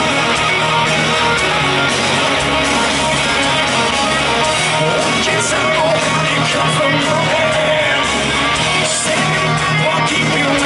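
Heavy metal band playing live, distorted electric guitars over drums, loud and continuous, heard through a small camera's microphone in the audience.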